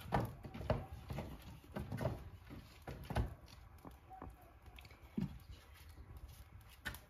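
Dry wooden branches and sticks knocking and scraping against each other and the hearth as firewood is laid on a small wood fire, in irregular knocks about every half second to second.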